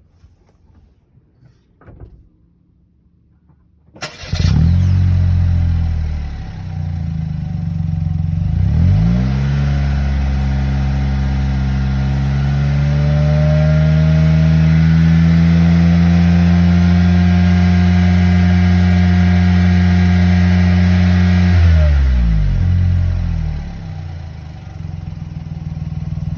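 Daihatsu Tanto Custom RS's 660 cc turbo three-cylinder engine, breathing through an aftermarket Fujitsubo GTbox 06&S muffler with its inner silencer fitted. It starts about four seconds in and idles. It is then revved up and held at a steady higher speed for about twelve seconds before dropping back to idle near the end.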